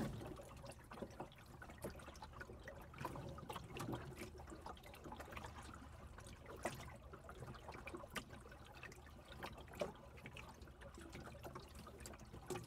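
Faint water sounds: gentle lapping and trickling around a small open boat's hull, with scattered small clicks and drips.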